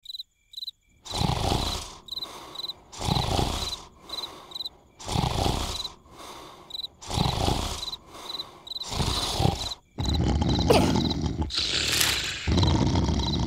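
Cartoon character snoring, one loud snore about every two seconds, with crickets chirping steadily behind it. From about ten seconds in the snoring runs on longer without a break.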